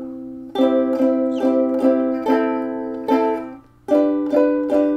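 Acoustic stringed instrument strumming chords, about two strums a second, each ringing out, with a brief break a little past the middle before the strumming resumes.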